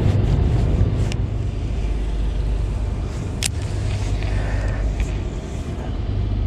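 Steady low rumble of road traffic on a busy highway bridge, with a couple of brief sharp clicks about a second in and again midway.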